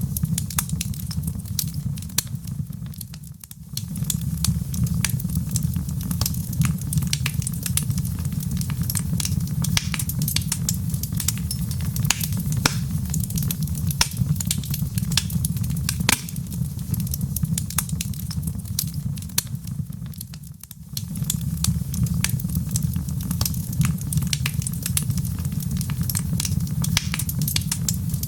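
Wood fire burning in a fireplace, crackling with many sharp pops over a steady low rumble. The sound dips briefly twice, about three seconds in and again about twenty seconds in.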